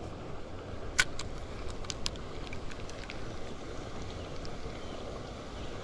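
Steady low wind and water noise around a small boat on open water, with one sharp click about a second in and a few lighter clicks shortly after.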